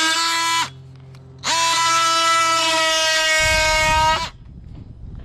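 DeWalt cordless oscillating multi-tool running in short bursts with a steady high whine as its blade plunges into a board to cut out an electrical box opening. It stops, winding down slightly, under a second in, starts again less than a second later and runs for nearly three seconds, with a low rumble of the blade working into the board near the end and after it stops.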